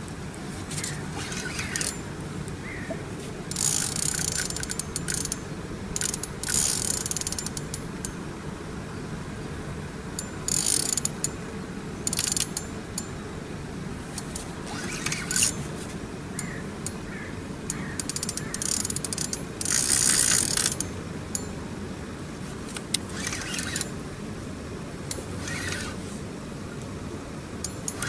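A spinning reel clicking and whirring in short bursts, about eight times, as its drag gives line to a hooked wels catfish and the reel is wound in between. A steady low rumble runs underneath.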